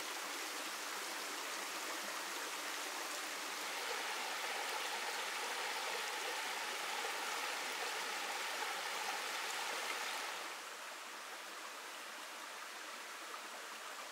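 Headwater mountain stream flowing, a steady rush of water. It grows a little louder about four seconds in and drops abruptly quieter about ten seconds in.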